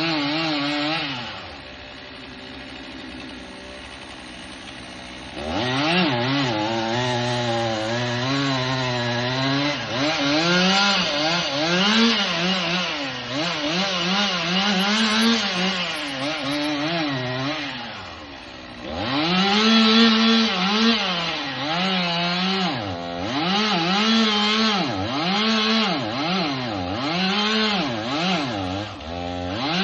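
Chainsaw cutting wood, its engine revving high and sagging in pitch again and again under load. It drops back to idle twice, for several seconds near the start and briefly about two-thirds of the way through.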